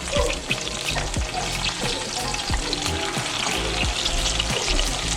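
Chicken breasts frying in hot canola oil in a skillet, sizzling and crackling steadily.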